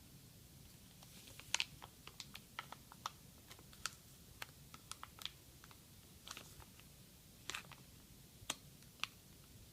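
Packaging of a new solid-state drive being opened and handled: irregular small clicks and short crackles, a few to the second.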